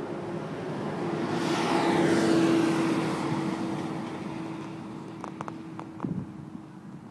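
John Deere tractor towing a silage trailer drives past. The engine and rolling noise build to a peak about two seconds in, drop in pitch as it goes by, and then fade as it pulls away.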